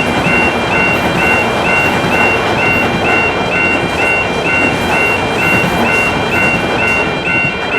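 Japanese level-crossing warning bell ringing its 'kan-kan' alarm, about two strikes a second, over a steady rushing noise like a passing train.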